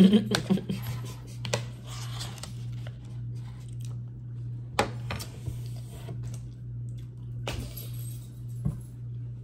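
Eating with a metal fork from a plate: a cluster of clicks and scrapes at the start, then a few single clinks and scrapes spread through, over a steady low hum.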